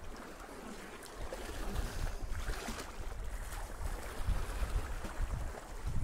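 Wind gusting on the microphone in uneven low rumbles, over the wash of sea water lapping at the rocks.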